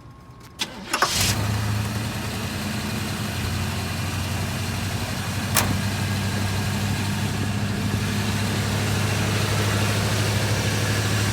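Car engine cranked briefly and catching about a second in, then idling steadily. A single sharp click about halfway through.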